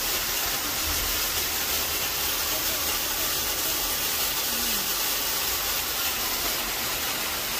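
Heavy rain pouring down, a steady even hiss, with water spilling off the roof edge and splashing.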